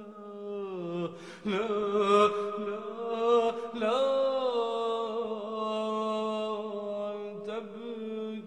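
Arabic vocal chant: a solo voice sings long, sliding, held notes over a steady low drone.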